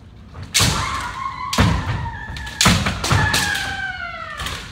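Kendo sparring: four sharp thuds about a second apart from stamping feet on the wooden dojo floor and bamboo shinai strikes, each followed by a long drawn-out kiai shout that sags slightly in pitch.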